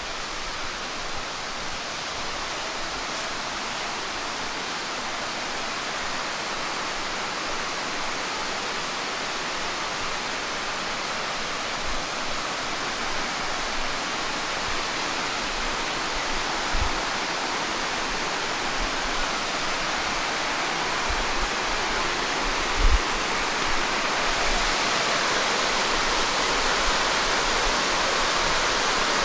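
Rainforest waterfall rushing as a steady hiss of falling water, slowly growing louder. A couple of brief low thumps come in the second half.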